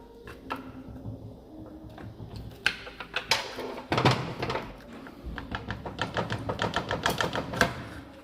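Steel lever bars working the gear selector arm of a Fiesta ST gearbox off its shaft: rapid metallic clicking and scraping with sharp knocks. It comes in two busy spells, the first about a third of the way in and the second in the last few seconds.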